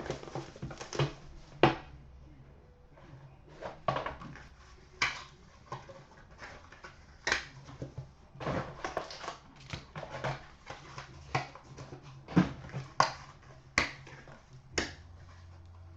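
Hands opening a sealed trading-card box and its wrapper: irregular taps, knocks and clicks of cardboard, with short stretches of plastic or foil crinkling.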